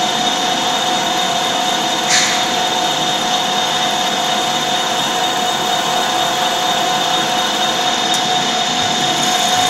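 Metal lathe turning a large metal workpiece while the cutting tool takes a cut, chips coming off: a steady machine noise with a constant mid hum and a high whine. A brief sharp hiss of the cut about two seconds in.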